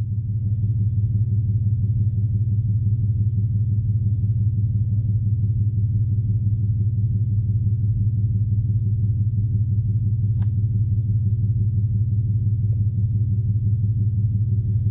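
A steady low hum, one unchanging pitch with overtones, with a single brief faint tick about ten seconds in.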